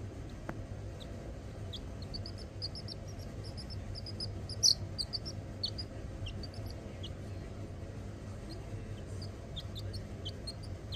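Baby chick peeping in short, high chirps, with a quick run of peeps about two seconds in and one louder peep near the middle.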